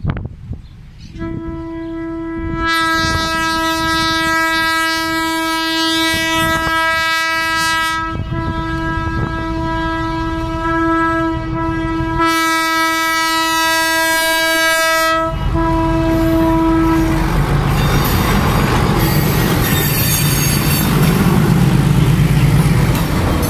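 Diesel freight locomotive's horn sounding one long, held blast for about sixteen seconds, louder in two stretches, as the train nears a level crossing. This is the crossing warning. Near the end the locomotive passes close by: loud diesel engine and rolling wheels.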